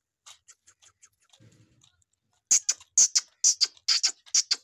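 Calf suckling at a goat's teat: wet sucking smacks, faint at first, then loud and regular at about two a second from about halfway in.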